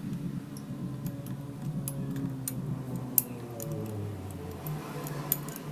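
Scattered light metallic clicks and clinks of tools and small engine parts being handled, over a low background hum.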